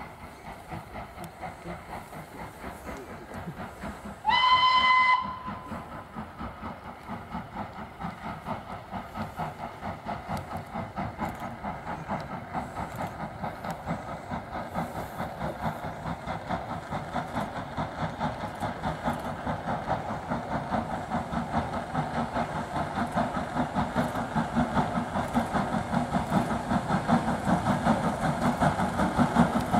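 Steam locomotive hauling a train: one short whistle blast about four seconds in, then a steady rhythm of exhaust beats that grows louder as the engine draws near.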